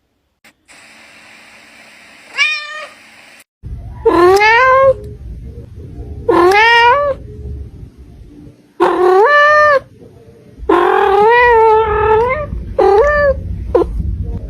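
Domestic cat meowing: one short meow, then a run of about six long, drawn-out meows, each rising in pitch at the start and then held for around a second.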